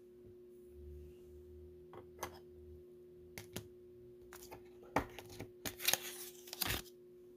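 Hands handling a plastic magnetic one-touch card holder, making scattered light clicks and rustles, busiest about five to seven seconds in, over a faint steady hum.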